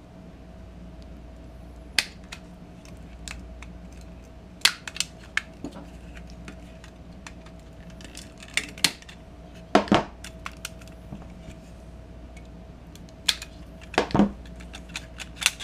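Plastic shell of a Cree 4Flow LED bulb being pried apart with a screwdriver: scattered clicks and small snaps of plastic, with louder cracks about two-thirds of the way in and near the end.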